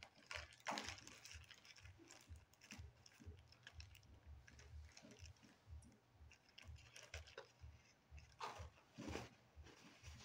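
Faint crinkling and clicking as sticky homemade slime is handled and put into a plastic zip-top bag.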